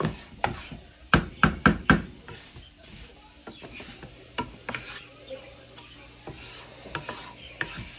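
Wooden spoon stirring and scraping crumbly clumps of flour and melted butter around a nonstick frying pan as the flour starts to toast. A quick run of about five sharp knocks comes a little over a second in, followed by softer scraping with occasional clicks.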